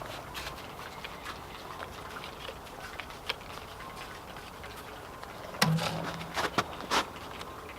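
Scattered small clicks and knocks of hand tools and metal parts being handled, with a louder cluster of knocks about five and a half seconds in, the first followed by a brief low hum.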